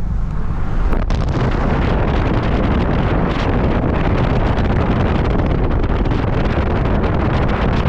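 Wind buffeting the microphone over road noise from a moving car, a steady rushing rumble. It turns louder just after a sharp click about a second in.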